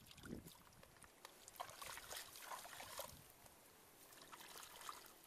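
Faint trickling and dripping of shallow muddy water, with small splashes, as hands lift duck eggs out of it.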